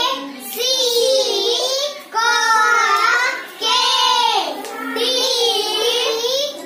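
Young children chanting phonics syllables that pair a consonant with the 'e' sound (pe, le, ge, be) in a sing-song rhythm, in repeated phrases of about a second each with short breaks between them.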